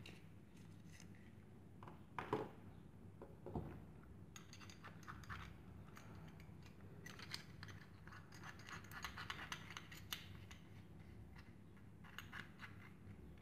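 Faint handling sounds: two short knocks early on, then runs of rapid clicking and scraping as a drill's keyless chuck is twisted by hand to grip a drill bit.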